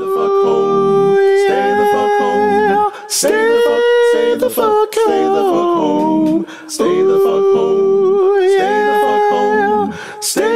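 A solo voice singing a wordless melody a capella, in three long phrases of held, wavering notes with short breaks between them.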